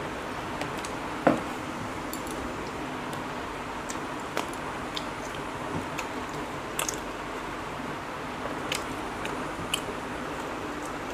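Two people eating bread and fried egg by hand: small wet mouth clicks and smacks of chewing, scattered irregularly, with one louder knock about a second in. A steady background hiss runs underneath.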